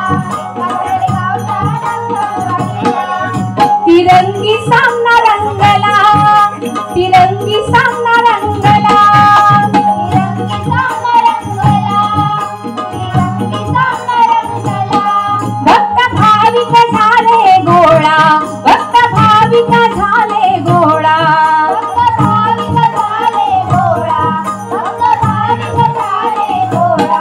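Devotional bhajan music: a woman's voice singing a sliding melody over a steady beat on a barrel drum (pakhawaj), with jingling, rattling percussion.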